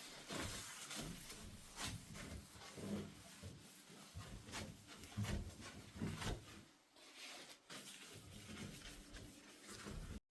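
Close handling sounds: rubbing and scraping broken by many light knocks and clicks, cutting off abruptly near the end.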